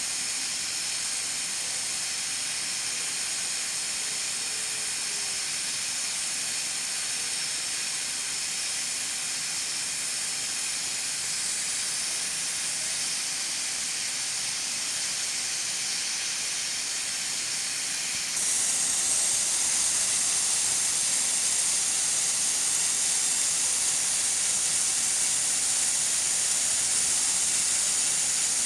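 Pressure cooker hissing steadily as steam escapes past its weighted valve. The hiss gets louder and sharper about two-thirds of the way through.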